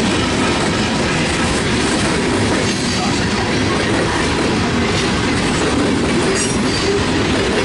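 Freight train's open-top hopper cars rolling past, a steady noise of steel wheels running on the rails.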